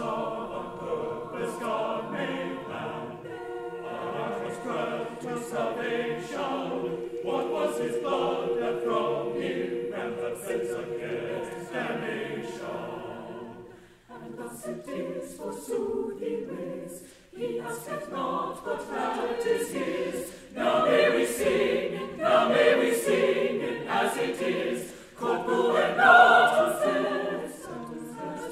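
Large mixed choir singing in parts, with a long held note under the other voices through the first half. The sound thins out briefly about halfway, then builds up louder toward the end.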